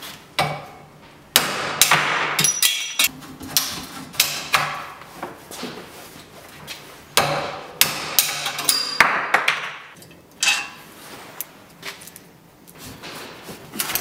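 Hammer blows driving bicycle headset cups into the head tube of a frame, struck through a length of plastic pipe used as a drift: a series of sharp, irregular strikes, some with a brief ringing.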